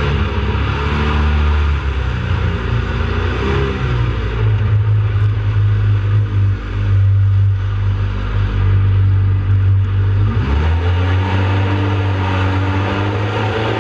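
Jet boat engine running hard under way, over a steady rushing hiss of water and wind. The engine note rises about four seconds in and eases back down about ten seconds in.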